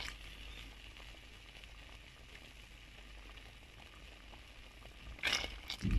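Pot of ghee-fried vermicelli with water and lentils simmering on the stove, a faint steady sizzle. A few louder knocks near the end.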